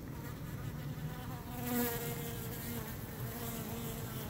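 Honey bees buzzing in flight around the hive: several overlapping, slightly wavering hums, swelling briefly about two seconds in.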